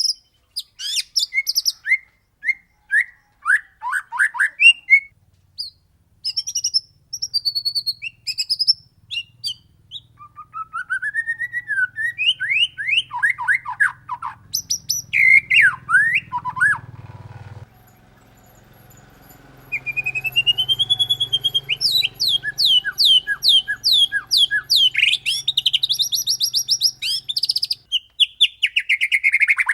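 White-rumped shama (murai batu) singing a varied song of clear whistled notes, rising and falling glides and fast rattling trills, the sharp 'shooting' and rolling phrases prized in song training. It pauses briefly past the middle.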